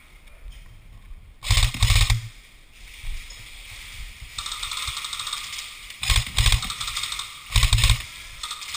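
Airsoft rifle fired close by in three short bursts of rapid full-auto shots, about a second and a half in, at about six seconds and again near the end. Fainter rapid airsoft fire clicks away between the bursts.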